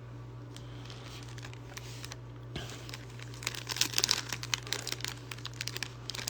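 Crinkling and tearing of a plastic booster-pack wrapper being ripped open and handled. It starts about two and a half seconds in and is loudest around four seconds, over a steady low hum.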